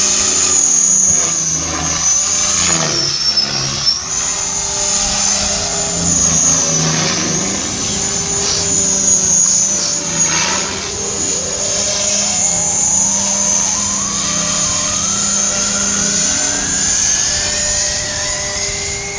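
Align T-Rex 500 Pro DFC electric radio-controlled helicopter in flight: a steady high whine from the drive over the hum of the rotor, its lower tones shifting as it manoeuvres. In the second half a tone rises slowly in pitch.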